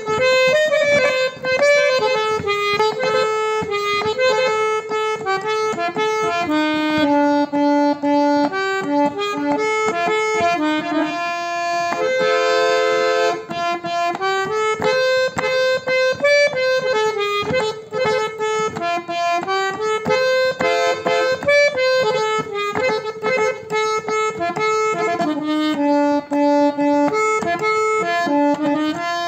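Antique hand-pumped harmonium with Paris reeds playing a melody by hand: reedy held notes stepping up and down, now and then with a second note sounding under the tune.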